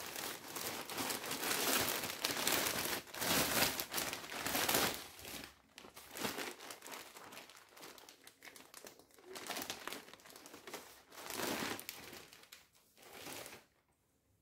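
Thin plastic packaging crinkling as hands handle a plastic courier mailer bag and then open a clear plastic garment bag. The crinkling is loudest for the first five seconds or so, then comes in softer, scattered bursts and stops shortly before the end.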